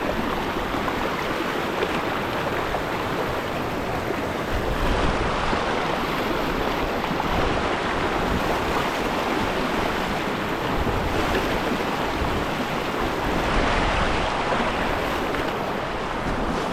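River water rushing steadily, with low gusts of wind buffeting the microphone a few times.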